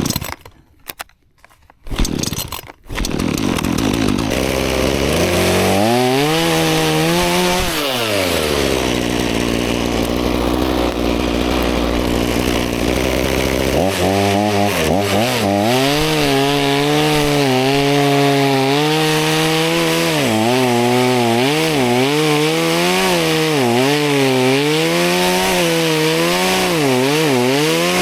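Two-stroke chainsaw sputtering in a few short bursts, then catching and running. It revs once, idles steadily, and then, about halfway through, revs repeatedly with its pitch sagging and recovering again and again as it bogs under load cutting through branches.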